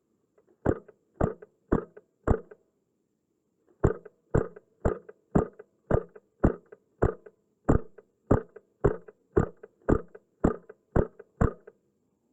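Wolverine MTW HPA airsoft rifle firing semi-automatic shots: four quick shots, a pause of about a second and a half, then about fifteen more at roughly two a second.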